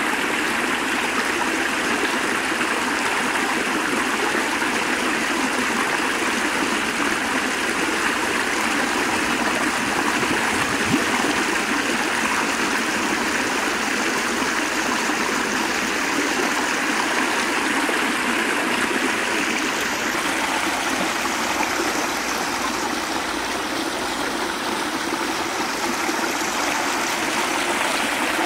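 Water pouring steadily out of concrete culvert pipes and splashing down into a shallow channel.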